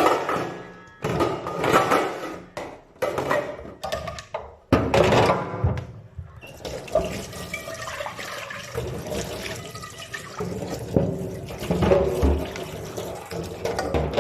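Dishes clattering as they are handled in a sink for the first several seconds, then a tap running steadily into the sink.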